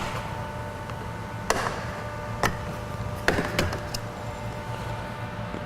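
Sharp plastic clicks and knocks, about four in a few seconds, as a plastic trim cover on a car door panel is pried off with a pick.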